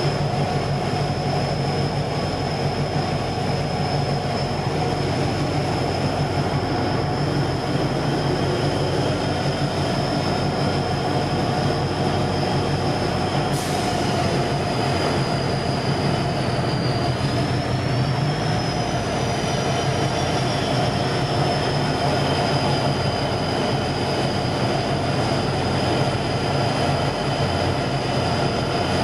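Tugboat's diesel engines running steadily under way, heard from on deck as a constant drone with a high whine above it that wavers briefly a little past halfway.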